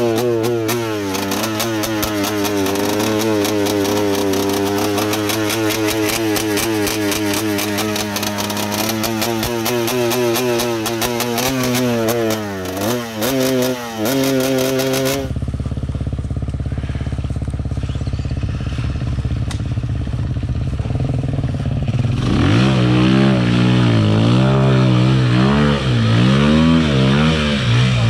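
Enduro motorcycle engine running under throttle, its pitch wavering up and down with a crackling clatter over it for the first half. About halfway through the sound changes abruptly to a steadier low engine note. Near the end come repeated revs that rise and fall.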